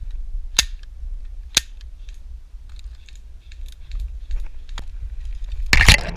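Airsoft gun shots: two single sharp snaps about a second apart, a few fainter ticks, then a louder quick burst near the end, over a steady low rumble on the microphone.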